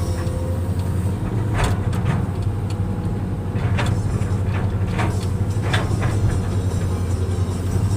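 Kobelco excavator's diesel engine running steadily under load, with short sharp clunks or scrapes about every two seconds.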